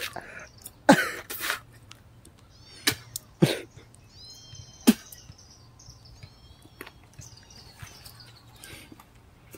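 A person gagging and spitting out a mouthful of sandwich they cannot swallow: three short retching noises that drop in pitch, about one, three and a half and five seconds in, with hissing spits around them.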